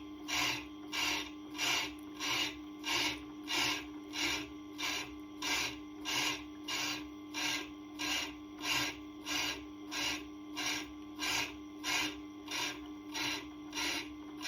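Diamond point of a Tormek TT-50 truing tool scraping across a turning Tormek grinding stone, a rhythmic rasp about one and a half times a second over the steady hum of the machine's motor. The stone is being trued flat and round, and here the diamond is taking off only a little material.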